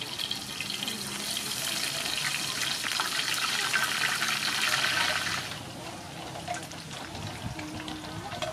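Rice-flour-battered shrimp fritter deep-frying in a wide pan of hot oil: a dense, crackling sizzle that grows louder, then drops away suddenly about five and a half seconds in, leaving a quieter background.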